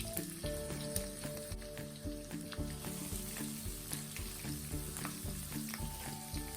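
Food frying and sizzling in hot oil in a pan, with light taps of stirring.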